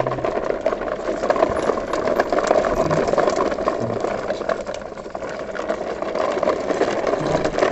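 Plastic toy truck and its trailer rattling and clattering steadily as their hard plastic wheels roll over rough concrete, with a kitten riding in the bed.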